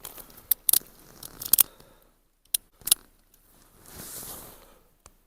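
A series of sharp metallic clicks from a Cimarron single-action .45 Colt revolver's mechanism being worked by hand, the loudest a quick pair about a second and a half in, then a soft rustle around four seconds in.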